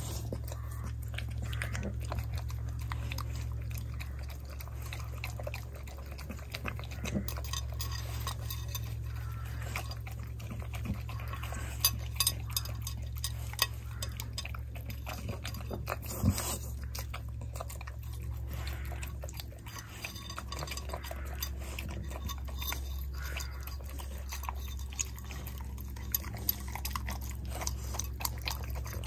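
Chow chow eating tagliatelle off a ceramic plate: wet chewing and licking, with teeth and tongue clicking and knocking against the plate, and a few sharper knocks around the middle. A steady low rumble runs underneath.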